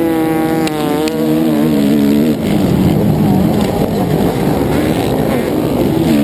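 Suzuki RM-Z four-stroke motocross engine racing in a pack of dirt bikes: its pitch falls over the first couple of seconds as it slows into a turn, with two sharp clicks about a second in, then it mixes with the other bikes' engines, rising and falling.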